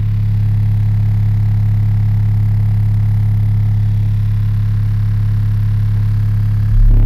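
Six custom Soundstream XXX 15-inch subwoofers, driven by a Taramps MD 12000.1 amplifier at 0.47 ohm, playing a steady, loud 35 Hz test tone for a maximum-output burp. The low bass gets louder about a second before the end.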